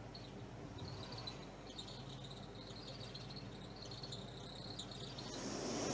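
A pause in the recitation: faint, high-pitched intermittent chirping in the background. Near the end, a louder breath drawn in close to the microphone as the reciter fills her lungs for the next verse.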